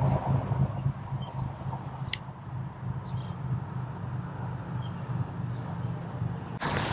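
Outdoor ambience by a pond: a steady low rumble, with brushing through grass in the first second as the angler walks to the water. A few faint short chirps and one brief click about two seconds in.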